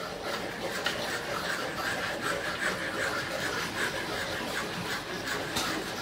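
Hand saw cutting wood in a steady run of back-and-forth strokes, a rasping scrape on each stroke.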